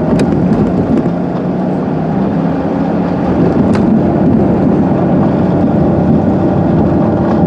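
A car engine running steadily, heard from inside the vehicle as a low hum with road and cabin noise, and a couple of faint clicks.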